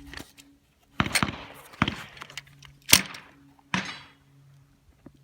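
Four pistol shots roughly a second apart from a Glock 22 fired with a 9mm conversion barrel and 9mm rounds, each a sharp crack with a short tail, the third the loudest. The string of shots shows the conversion barrel cycling and firing.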